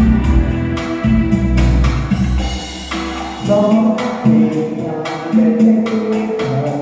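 A Vietnamese song: instrumental backing with a steady beat and a singing voice. The heavy bass drops out about halfway through.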